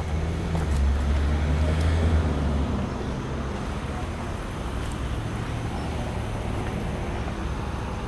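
A car driving past, its low engine rumble loudest about a second or two in, then easing to a steady low traffic hum.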